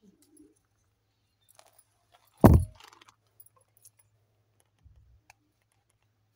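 Deflated latex balloons rustling and rubbing as hands sort through a pile of them, with one loud, sudden thump about two and a half seconds in and a few soft knocks near the end.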